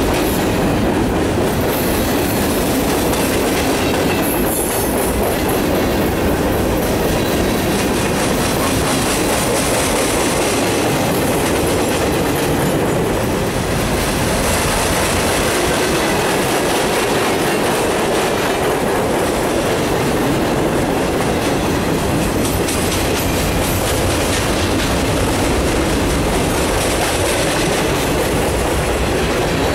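Freight cars of a mixed freight train rolling past close by: a steady, loud rumble and clatter of steel wheels on the rail.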